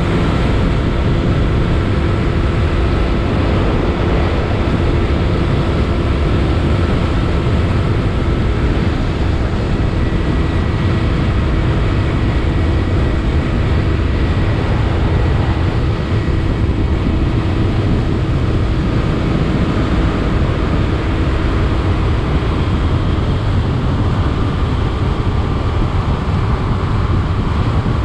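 Motorcycle riding at a steady cruising speed: heavy wind rush on the microphone over the engine's even drone. The engine note holds steady with no gear changes or revving.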